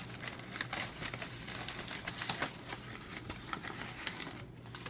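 Faint, irregular small clicks and light rustling from a diecast toy car and its packaging being handled.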